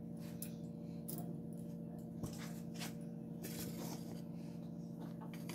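Low steady hum, with a few faint clicks and light taps of kitchen utensils and a steel bowl being handled.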